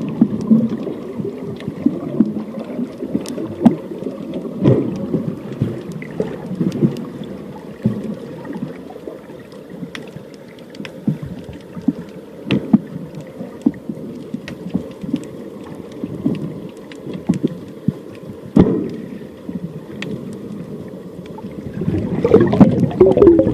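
Muffled, low water noise from an underwater camera in its housing, with scattered sharp clicks throughout. Near the end it gets louder and a wavering tone comes in.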